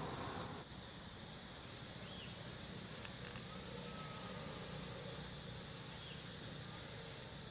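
Steady outdoor ambience in a treetop: an even hiss over a low hum, with a thin continuous high-pitched insect drone and a few faint short chirps. It gets slightly quieter about half a second in.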